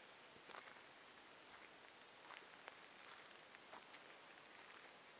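Insects singing one steady, unbroken high-pitched note, with faint scattered footsteps on a gravel path.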